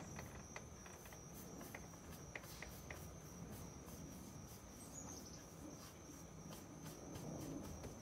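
Crickets trilling steadily in a faint, high, unbroken drone, with a few light ticks in the first few seconds.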